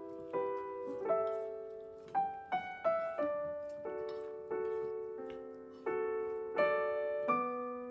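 Background piano music: a gentle melody of single struck notes and chords, each fading away after it is played.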